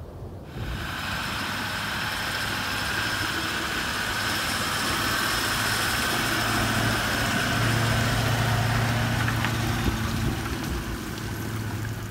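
An engine running steadily under a constant hiss, a little louder in the second half.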